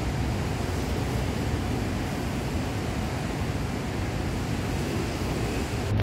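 Steady, even rushing noise of outdoor city ambience, with no distinct events in it.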